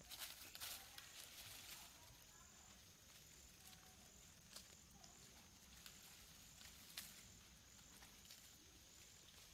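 Near silence: a faint, steady high insect buzz in the forest, pulsing evenly, with a few soft clicks and crackles.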